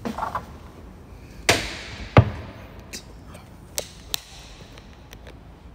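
Thumps and knocks of a man climbing up into a boat: a few small knocks at first, a heavier thud about two seconds in, then a few lighter clicks.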